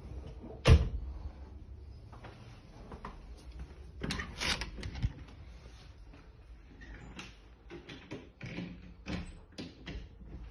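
An interior door bumping open with one sharp knock about a second in, followed by scattered lighter clicks and taps.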